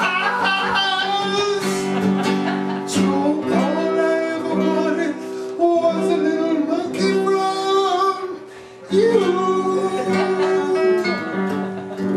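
A song, with a man singing over strummed acoustic guitar. The music briefly drops away about eight seconds in.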